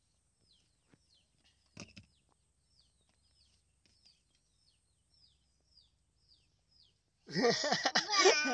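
A long run of faint, short chirps from a small bird, about two to three a second, with a single knock about two seconds in. Near the end a loud, high-pitched voice breaks in.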